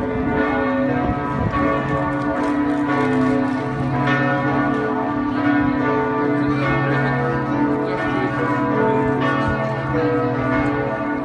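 Church bells of Saint Salvator's in Bruges ringing a continuous peal, several bells sounding over one another and each tone ringing on as the next is struck.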